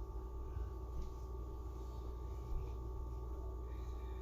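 Steady low background hum with faint steady tones above it, and a small tap about two and a half seconds in.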